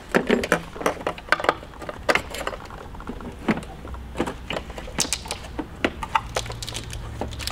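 Irregular small plastic clicks and taps as a turn-signal bulb socket and its wiring harness are handled and fitted.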